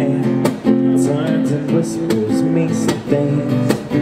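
Background music: strummed guitar chords over a steady beat.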